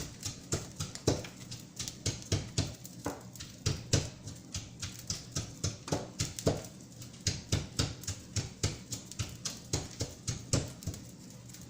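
Ginger and cilantro being pounded with a pestle in a mortar: a steady run of short knocks, several a second.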